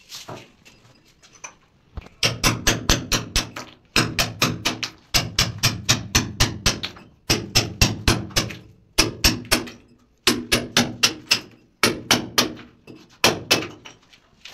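Hammer striking a chisel to chip plaster and brick out of grinder-cut slots in a wall. Quick runs of sharp knocks, about five or six a second, with short pauses between runs; the first couple of seconds are fainter.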